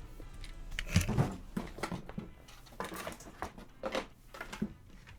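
Plastic toy transformation belt and game cartridge being handled, giving a string of light, irregular clicks and knocks as the cartridge is swapped.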